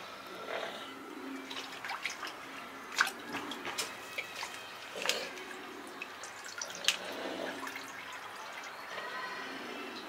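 Water dripping and trickling from a cormorant's bill onto a plastic bucket lid as it works a large fish down its throat: a wet, uneven patter of sharp drips, the loudest about three, five and seven seconds in.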